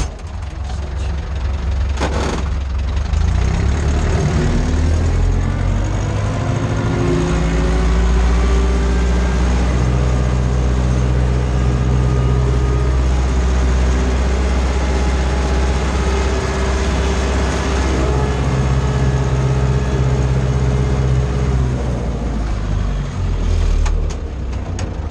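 Ursus C-360's four-cylinder diesel engine running under load while pulling a tillage cultivator: a steady engine drone whose pitch climbs over the first few seconds and then holds, with a short click about two seconds in.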